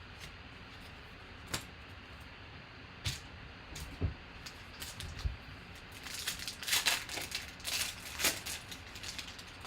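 Trading-card packs and cards being handled: a few soft taps and knocks, then about two seconds of crisp crinkling and tearing as a pack wrapper is opened, starting about six seconds in.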